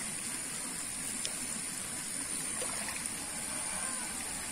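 Steady splashing and rushing of pond water, its surface churned by crowding, hungry bawal (pacu) fish.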